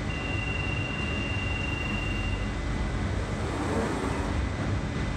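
London Underground 1992-stock Central Line train standing at the platform, its steady running hum under a high door-closing warning tone held for about two seconds, followed by the doors sliding shut about three and a half seconds in.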